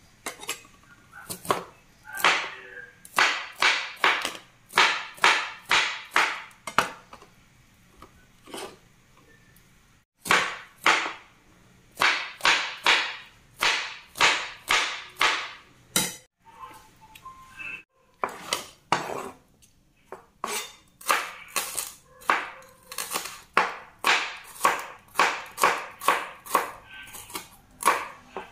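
Kitchen knife chopping through peeled sponge gourd onto a plastic cutting board in runs of steady strokes, about two a second, with short pauses between runs. Near the end the strokes come faster as the knife chops garlic and shallots.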